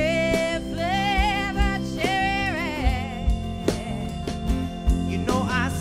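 A live band playing a song: a woman singing long held notes over acoustic guitar and a drum kit keeping a steady beat.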